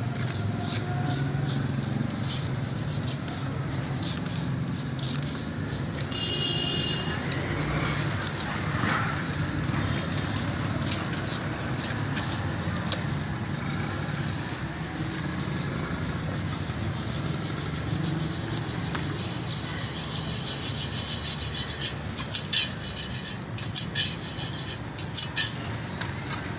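Steady low rumble of street traffic mixed with the scrape of a metal stirrer through hot sand and corn kernels in an iron roasting pan. A few sharp clicks come near the end.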